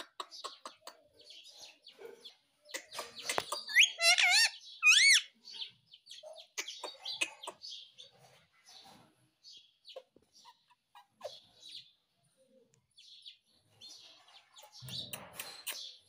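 Rose-ringed (Indian ringneck) parakeet chattering quietly with clicks and short chirps, giving two loud wavering whistled calls about four and five seconds in.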